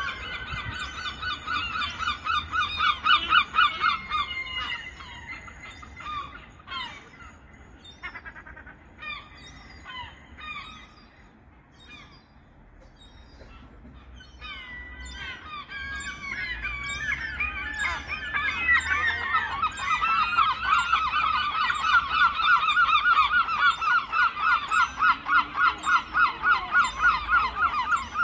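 Juvenile herring gull begging for food, a noisy, rapid, repeated high-pitched call. The run is loud at first, thins to scattered calls in the middle, then builds into a long unbroken series of about three calls a second.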